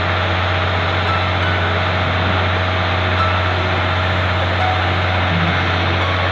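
Fishing boat's engine running steadily under way, a loud, even low drone heard on deck.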